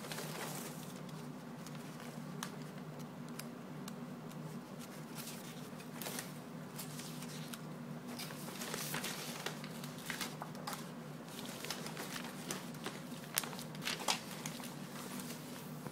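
Paper flyers and newspaper rustling and crinkling as a kitten moves about among them in a plastic bin, in scattered short crackles, a few sharper ones near the end, over a steady low hum.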